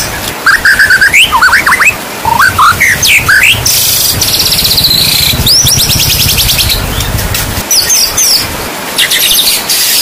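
White-rumped shama (murai batu) singing a run of varied whistled phrases that swoop up and down, with a fast rattling trill in the middle, over a steady hiss of rain. A low rumble sits under the middle part.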